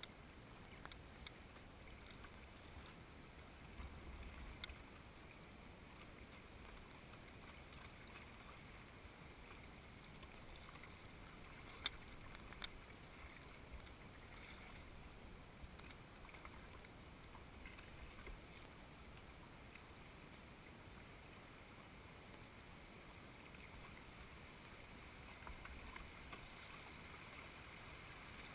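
Faint, steady rush of shallow river water rippling over a riffle around a canoe, with a few light knocks, the sharpest about twelve seconds in.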